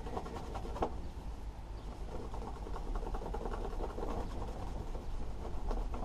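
Cloth rubbing and wiping on a hard plastic lawnmower engine cover, a faint scratchy sound, clearing excess superglue. A single click about a second in, over a low steady background rumble.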